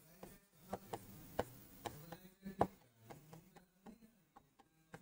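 Chalk writing on a blackboard: a string of faint, irregular taps and scrapes as a line of letters and symbols is written.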